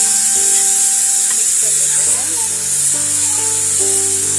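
Churma sizzling in ghee as it is stirred and roasted in a steel wok with a steel spatula: a steady, bright hiss. Background music with held notes plays underneath.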